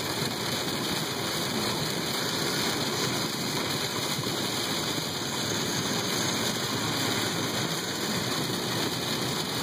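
Heavy rain on a moving car with tyres hissing on the flooded highway, heard from inside the cab: a steady rushing noise.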